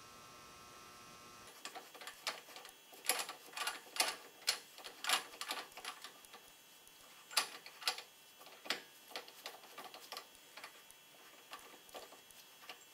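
Irregular light metal clicks and clinks as the spindle nut is threaded by hand onto a floating rear axle's spindle, the nut and the spindle-nut socket knocking against the steel hub. The clicks begin after about a second and a half.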